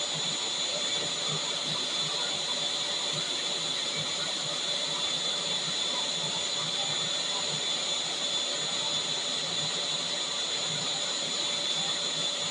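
Vacuum cleaner running steadily: a continuous motor whine and airflow rush with a high steady tone, no change in pitch or level.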